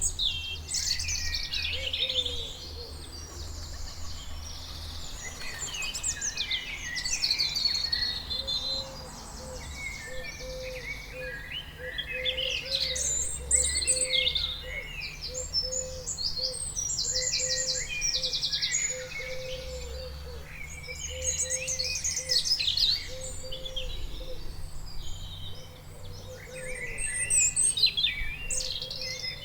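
Several songbirds chirping and singing at once, with rapid trills and short calls overlapping continuously, over a low steady rumble.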